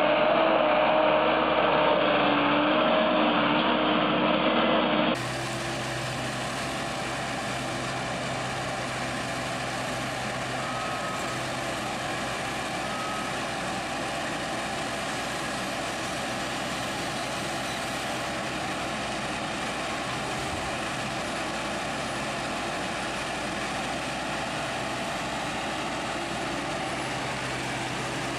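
Heavy machinery engines running: first a louder engine sound whose pitch wavers a little, then after an abrupt cut about five seconds in, a quieter, steady engine noise with a constant low hum.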